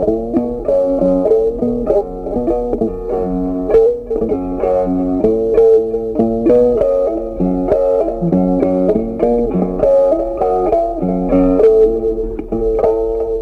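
Background music: a continuous melody of plucked-string notes over a bass line.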